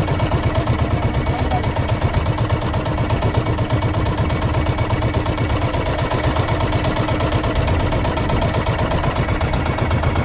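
Engine of a motorized outrigger boat running steadily with a fast, even chugging pulse.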